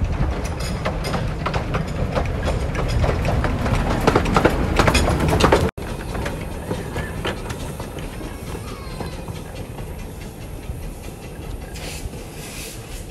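Miniature steam railway train running on its track, its wheels clicking sharply and growing louder as it comes in. After a sudden break, the small steam locomotive runs on more quietly, with a hiss of steam from its cylinders near the end.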